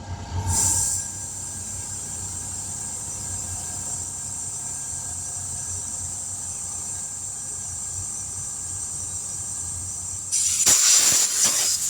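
Steady hiss of compressed air with faint whistling tones, then a louder, rougher rush of air for about a second and a half near the end.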